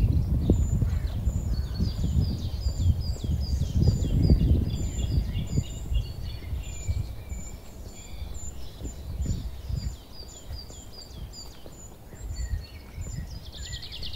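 Small songbirds chirping and singing in quick runs of short, high notes, over a low, uneven rumble that is loudest for the first four seconds or so.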